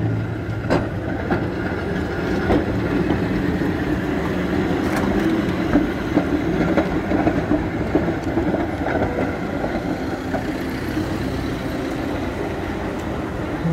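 Vintage tram car rolling past on street rails: a steady rumble of wheels on track, with sharp clicks and knocks as the wheels cross rail joints and points.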